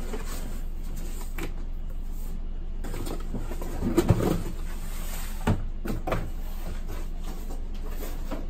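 Cardboard shipping box and a rigid gift box scraping and sliding as the box is pulled out and set down on a wooden table, with a cluster of knocks about four seconds in and two more knocks a couple of seconds later. A steady low hum runs underneath.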